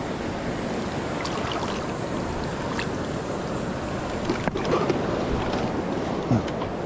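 Steady rush of river water flowing, with a few brief knocks about four and a half and six seconds in.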